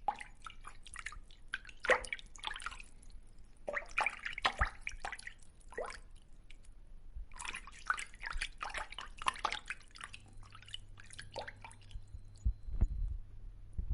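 Fish splashing at the water's surface: irregular clusters of small splashes and drips that come in bursts of one to three seconds, with short lulls between them.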